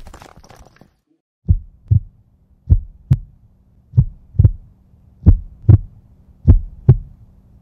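Heartbeat sound effect: slow paired low thumps, lub-dub, about one beat every 1.25 seconds. It starts about a second and a half in and runs for five beats over a faint low hum.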